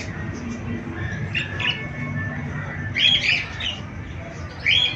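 Parrots squawking in short harsh calls, three bursts with the loudest about three seconds in and another near the end.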